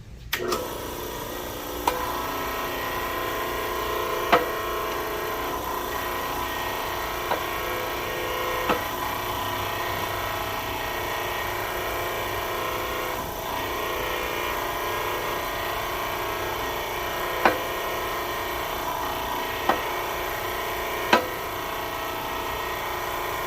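A machine running steadily while a 1/4-inch keyway broach cuts through the bore of a pulley on its second pass, with a few sharp clicks scattered through it.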